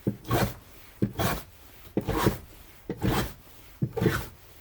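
Footsteps of a person walking, one step about every second, each a short scraping crunch.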